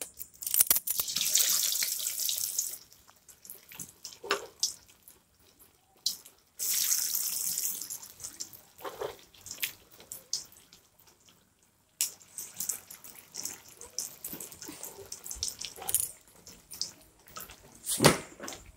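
Battered chicken pakodas deep-frying in hot oil in a kadai: steady sizzling and crackling. Two louder bursts of hiss come about half a second in and about six seconds in, as fresh pieces of batter go into the oil.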